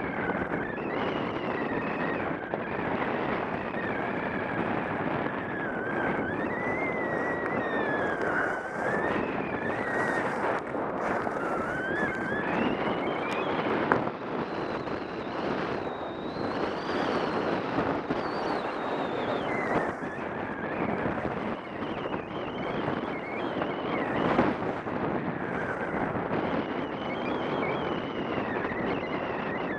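Wind rushing over the microphone of a skier's camera at speed, mixed with skis sliding and scraping over packed snow on a downhill run. A faint wavering whistle rides on top, with a single sharp knock about halfway.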